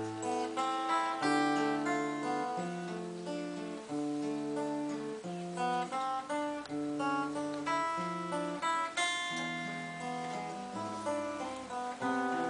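Solo classical guitar played fingerstyle: a slow melody of single plucked notes over bass notes, ringing on without a break.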